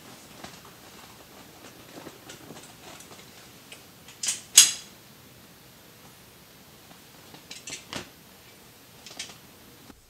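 Pistol being handled: small metallic clicks and rattles, the loudest a sharp metallic rattle about four and a half seconds in, with a few more clicks later.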